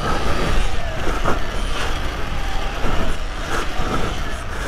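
Riding noise from an electric off-road motorbike going over dirt bumps: a steady rushing of tyres and air with scattered knocks and rattles from the bike.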